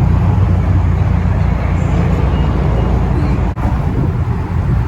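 Car engine running with a steady low rumble, with a brief drop about three and a half seconds in.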